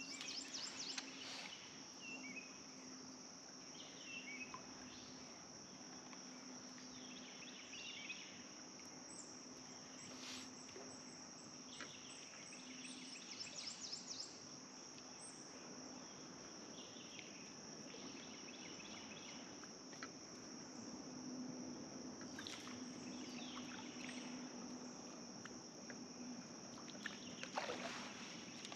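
Faint outdoor riverside ambience: a steady, high insect drone with birds chirping on and off. Underneath is a faint low steady hum, with a few sharp clicks and a brief swish near the end.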